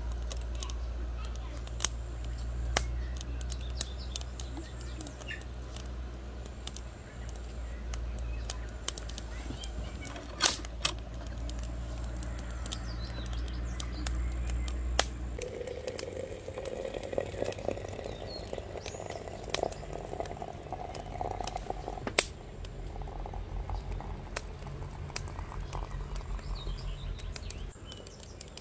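Water poured from a kettle into a glass teapot of dried herbs, starting about halfway through, its pitch rising as the pot fills. Before that a low steady rumble, with scattered sharp clicks throughout.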